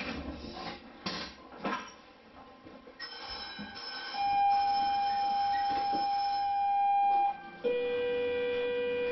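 Cable car departure signal: a steady electronic tone held for about three seconds, then a lower tone that takes over and carries on, warning that the car is about to move off. A few faint knocks come before it.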